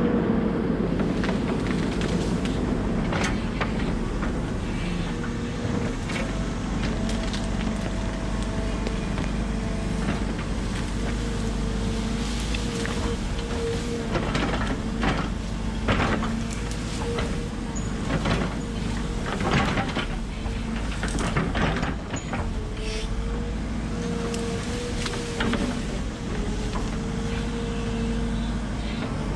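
Volvo 140 excavator's diesel engine running steadily under work, its pitch wavering, with repeated sharp cracks of breaking wood as trees and limbs are pushed over.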